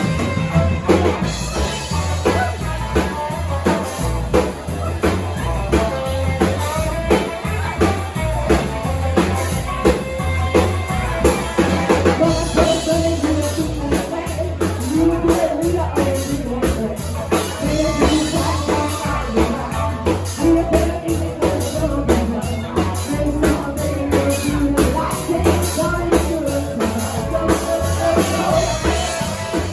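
Live rock and roll band playing with a steady drum-kit beat, bass and guitar, and a singer's voice over the top.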